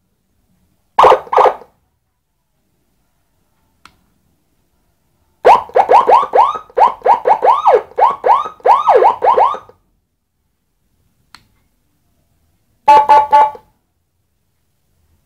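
Electronic siren module sounding through a 10-watt horn loudspeaker, stepping through its tones: two short blips, then about four seconds of fast up-and-down yelp sweeps, about three a second, then a brief rapid warble, with silent gaps between.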